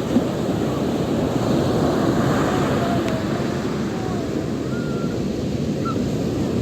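Sea waves washing onto the shore: a steady rush of surf, with a short knock just after the start.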